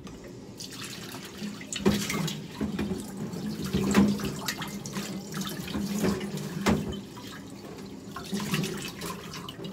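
Water running and splashing, with a few sharp knocks about two, four and seven seconds in; the water eases off after about seven seconds.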